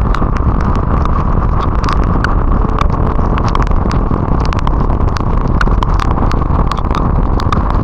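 Steady wind rush and road noise on an action camera during a motorcycle ride in the rain, with raindrops ticking sharply and irregularly against the camera.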